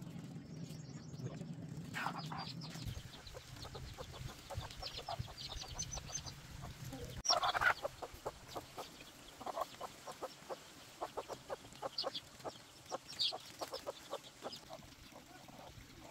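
Chickens clucking, with a louder sharp squawk about seven seconds in, among many short clicks. A low steady hum stops about three seconds in.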